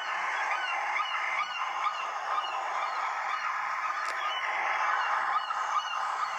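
Ringtone made of a recording of a flock of birds calling: many short, overlapping calls that run on steadily without a break.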